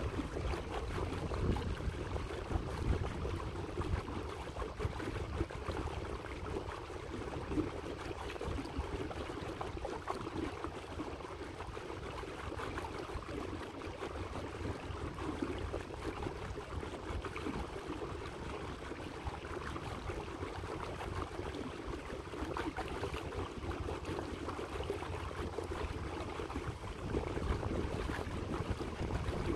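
Water splashing and lapping steadily against the hull of a small electric motorboat cruising slowly across choppy water.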